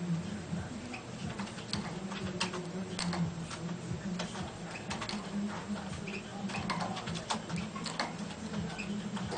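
Caged European goldfinch moving about in its wire cage: rapid, irregular sharp ticks and taps, with a few brief high chirps after the middle, over a steady low hum.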